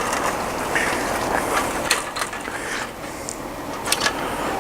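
Collapsible frame of a Coleman instant screen house being pulled open, its scissor joints clicking and rattling irregularly as the frame extends.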